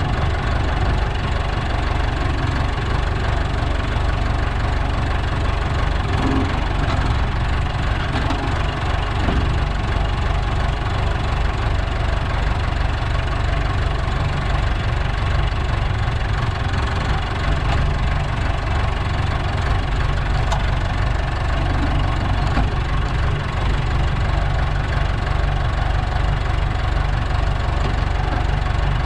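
Landini Trekker 85 crawler tractor's Perkins diesel engine idling steadily, with no revving.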